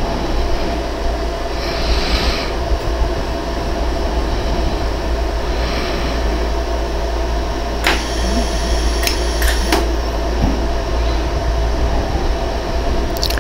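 Steady machine hum of a 100-joule LaserStar iWeld jewelry laser welder. A brief hiss comes about two seconds in and again about six seconds in, and a handful of sharp clicks follow around eight to ten seconds in.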